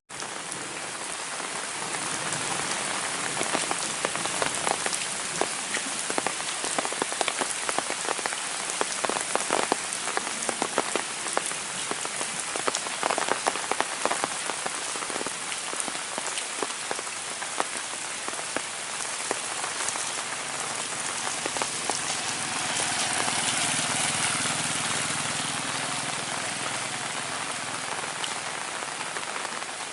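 Heavy rain falling steadily, with many close drops striking as sharp ticks through the hiss, densest in the first half.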